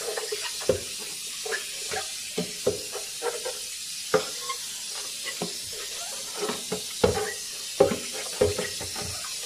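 Tap water running steadily into a sink while plastic vacuum-cleaner parts are rinsed, with frequent irregular clunks and knocks as the parts are handled against the sink.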